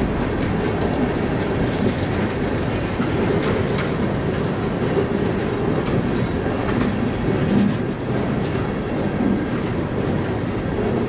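Freight cars (boxcars, a covered hopper and tank cars) of a long mixed train rolling past: a steady rumble of steel wheels on rail, with scattered clicks as the wheels cross rail joints.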